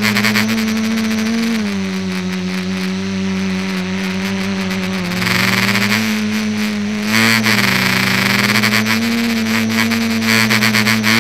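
Electric motors and propellers of the ETFD2 FPV aircraft, heard from its onboard camera: a steady whine whose pitch dips and rises with the throttle, growing louder and buzzier twice, about five seconds in and again near the end.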